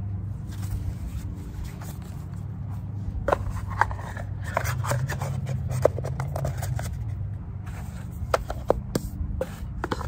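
A tarot deck being handled and slid into its rigid card box: card stock scraping against card and a run of small clicks and taps, mostly from about three seconds in onward. A steady low hum runs underneath.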